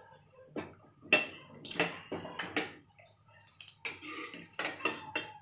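Steel ladle clinking and scraping against the sides and bottom of a stainless steel pot while stirring thick poha kheer, in a run of irregular strokes with the loudest clink about a second in.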